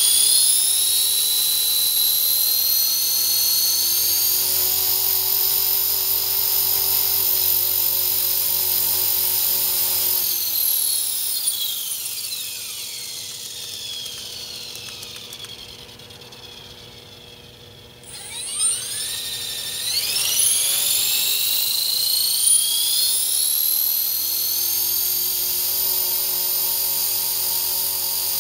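EXI 450 Pro electric RC helicopter's motor and rotor, a high-pitched whine, steady at first. About ten seconds in it spools down, falling in pitch and fading over several seconds nearly to a stop. About eighteen seconds in it spools back up quickly and runs steady again.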